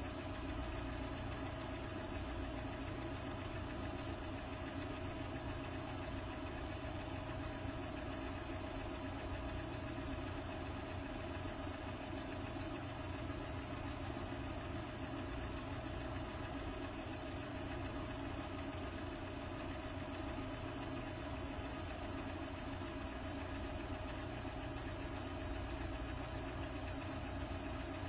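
A steady, unchanging hum with a constant tone and low rumble under an even hiss, machine-like, with no events or changes in it.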